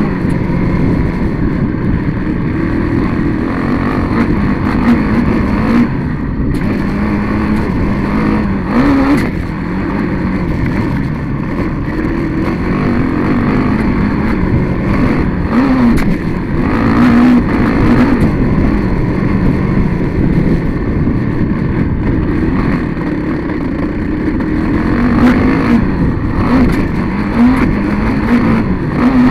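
Off-road vehicle engine running hard, its pitch rising and falling again and again as it revs through the gears over a dirt track, with heavy wind rush on the onboard microphone.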